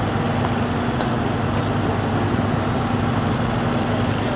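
Steady outdoor street noise around a large crowd on foot: an even low rumble and hum with no single event standing out.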